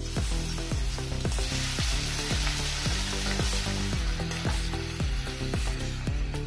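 Crushed garlic sizzling in hot oil in a steel kadai, stirred with a metal spatula. The sizzle is strongest in the first few seconds and eases off after about four seconds. Background music with a steady beat plays throughout.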